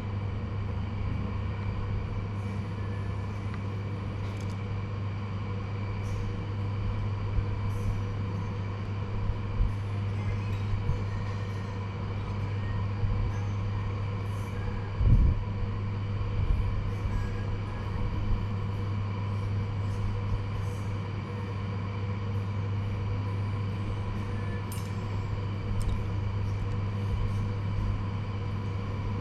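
Steady low mechanical hum with a few faint higher tones held above it. Scattered small clicks and soft knocks sit on top, and one louder thump comes about halfway through.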